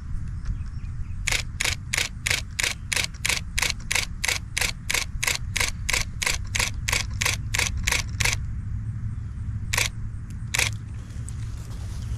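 Nikon D300S DSLR shutter and mirror firing a continuous burst at about three frames a second for some seven seconds, then two single shots near the end.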